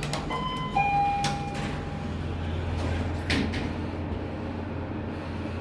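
Passenger lift: a two-note ding-dong chime near the start, then clunks of the sliding doors. From about a second and a half in, a steady low hum as the car starts travelling down.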